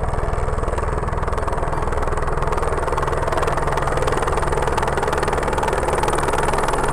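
Light turbine helicopter running, its main rotor beating rapidly and evenly over the steady engine noise, with a faint high whine.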